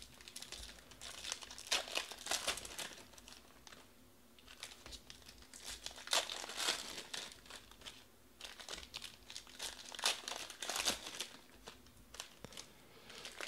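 Foil wrappers of Panini Prizm baseball card packs being torn open and crinkled in the hands: crackly rustling in several bursts, with short lulls between them.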